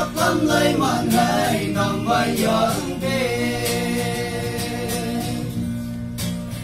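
A small group of young men singing a song together to acoustic guitar accompaniment. About halfway through the voices hold one long note, then fade near the end, leaving the guitar strumming.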